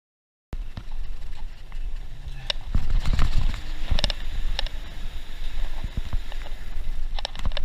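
Riding noise from a front-suspension bicycle, heard from a chest-mounted camera: a loud low rumble of wind and tyres with sharp clacks and rattles from the bike now and then, several of them close together near the end. It cuts in abruptly about half a second in.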